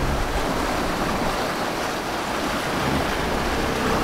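Steady rush of choppy sea and wind around a sailboat under way, waves washing along the hull.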